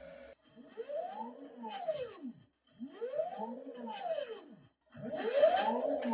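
DIY Kiwicleaner watch cleaning machine's motor spinning up and slowing down again three times in a row, a whine that rises and falls in pitch about every two seconds, the last cycle the loudest.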